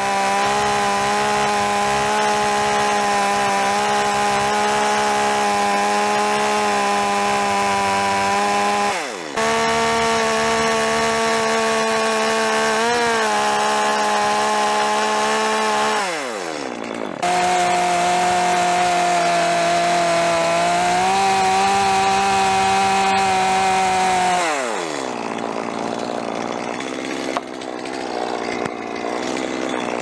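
Stihl two-stroke chainsaw running at full throttle, cutting a lap notch into a squared timber beam. It makes three long cuts, with a short dip in pitch about nine seconds in. After each cut the pitch falls away as the throttle is released. Near the end the saw runs quieter.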